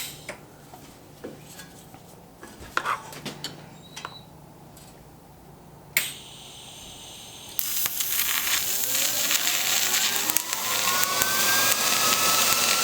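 Quiet handling clicks, then about six seconds in a sharp click and high hiss as a TIG welding arc is struck. From about a second and a half later the arc runs with a loud, steady sizzling crackle, and a faint whine rises in pitch and levels off.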